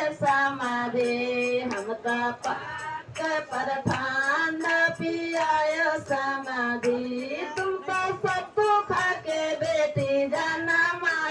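Women singing a Bihari wedding gaali, the traditional teasing insult song aimed at the in-laws, in high voices with a repeating tune over a steady beat of short knocks.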